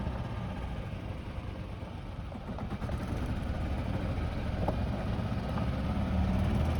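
Golf cart running as it drives along: a steady low rumble of the moving cart that grows a little louder near the end.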